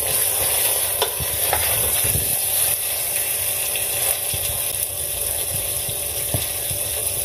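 Thick masala gravy with fried beef kababs sizzling in a metal pot over a medium flame, stirred with a wooden spoon that scrapes and knocks against the pot now and then. This is the bhuna stage, where the kababs are fried in the masala.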